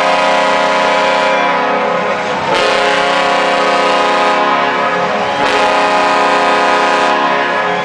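Chicago Blackhawks hockey goal horn sounding loudly: a deep, steady chord of many tones held through, blown again about two and a half seconds in and again about five and a half seconds in.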